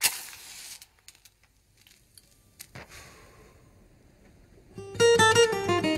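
A brief burst of noise at the very start, faint clicks and hiss, then about five seconds in an acoustic guitar begins a plucked, strummed intro to a song.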